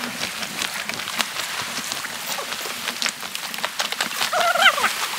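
Footsteps crunching along a rough stony path, irregular and quick, over a steady rushing background noise. A brief vocal sound comes near the end.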